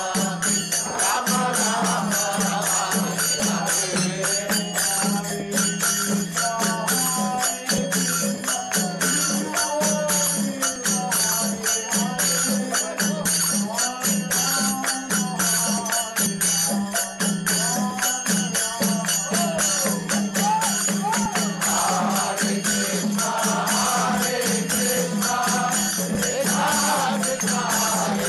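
Group kirtan: voices chanting a mantra together over rapidly, steadily clashing kartal hand cymbals and a drum.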